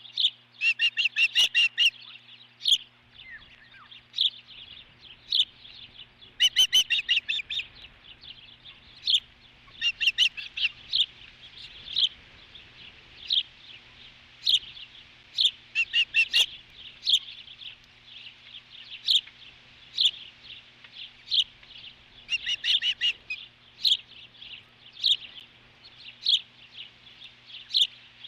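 Ospreys calling at the nest during a feeding: short, high, downward-sliding chirps about once a second, broken several times by quick runs of rapid chirps.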